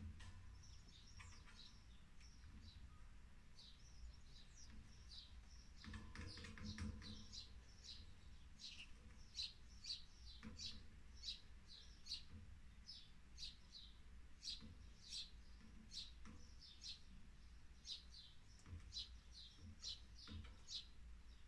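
Faint bird chirping: a string of short, high chirps that quickens to two or three a second after the first several seconds, with a brief soft rustle about six seconds in.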